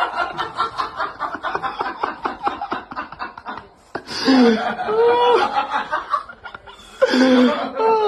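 A person laughing in a rapid run of short pulses for the first few seconds, followed by pitched, gliding voice sounds about four seconds in and again near the end.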